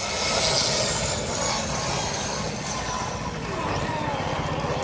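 HT-1500 1500-watt 125 mm angle grinder running steadily with its head submerged in a bucket of water, the motor's hum mixed with the churn of water around the spinning spindle. This is a waterproofing test: the grinder keeps running under water.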